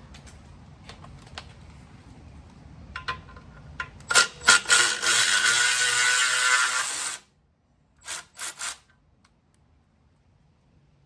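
Electric ratchet spinning out a clutch pressure plate bolt: a few clicks and knocks, a run of about three seconds starting about four seconds in, then three short bursts about a second later.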